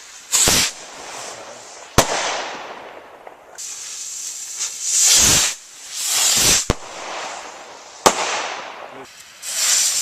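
Jorge sky rockets being fired. Several rockets whoosh up, about half a second in and twice between 5 and 7 seconds. Two sharp bangs, about 2 and 8 seconds in, are each followed by a crackling hiss that fades away.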